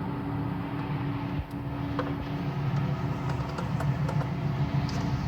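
Weiler Dominator industrial meat mixer grinder running: a steady mechanical hum from its drive, with scattered light clicks and knocks and a brief dip about a second and a half in.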